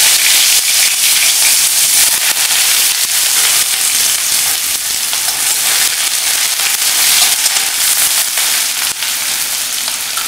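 Sliced onions frying in hot mustard oil in an aluminium kadai with bay leaves and dried red chillies: a loud, dense sizzle full of fine crackles that eases slightly over time, stirred with a wooden spatula.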